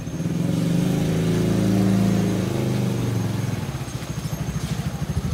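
A motor vehicle's engine revs up for about two seconds and eases back down, then runs on with an even, low pulsing beat.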